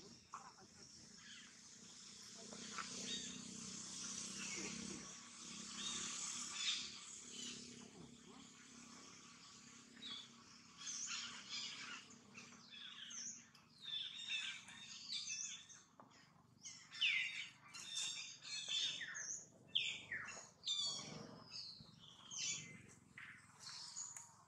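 Birds chirping: many short, high, quick falling chirps that grow thicker from about ten seconds in, over a steady outdoor hiss in the first part.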